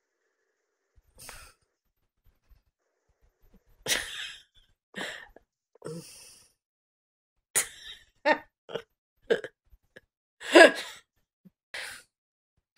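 A person's breaths, sighs and short breathy vocal sounds close to the microphone, in scattered bursts, with a brief voiced sound about ten seconds in.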